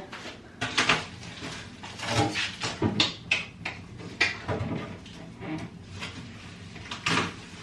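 A new refrigerator being opened and handled: a series of scattered clicks and knocks from its door, shelves and drawers.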